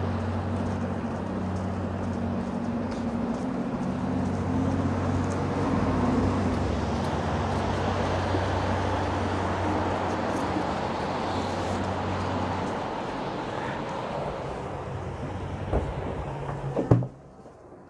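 Downtown street traffic: a steady hum of vehicle engines that eases after about twelve seconds. Near the end come a couple of sharp knocks as a glass building door is pushed open and swings shut, and the sound then drops suddenly to a quiet lobby.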